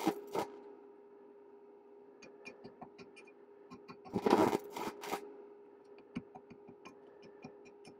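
Stick welding arc on aluminium with a 4043 aluminium rod: scattered crackles and pops as the arc is struck and sputters out, with a louder burst of crackling about four seconds in and a shorter one about a second later, over a steady hum. The stop-start arc is the sign of an arc that is really hard to hold with aluminium stick rods.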